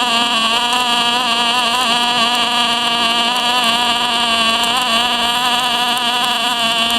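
MIG-MAG welding arc burning steadily: a continuous buzzing hum with a slightly wavering pitch.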